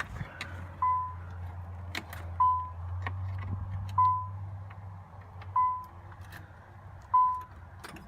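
Nissan 300ZX (Z32) V6 starting and running for a few seconds, then dying out about five seconds in; the owner says this engine misfires and stalls. The car's warning chime sounds about every second and a half.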